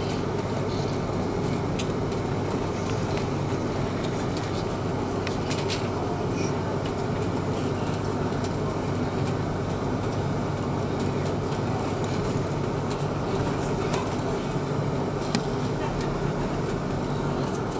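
Airbus A330-200 cabin noise while taxiing: a steady engine drone and rolling rumble with a low hum, its loudness unchanging, broken by scattered faint clicks and rattles.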